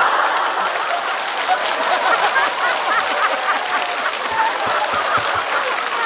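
Studio audience laughing and applauding, many voices laughing over steady clapping.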